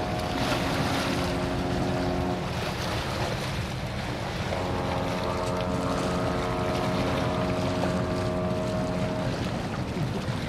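Two long, steady ship's horn blasts, each holding several pitches at once. The first ends a couple of seconds in and the second runs for about five seconds in the middle. Wind on the microphone and water noise sound underneath.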